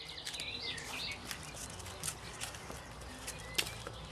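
Songbirds chirping in short trills, with a few sharp clicks or knocks, the loudest about three and a half seconds in.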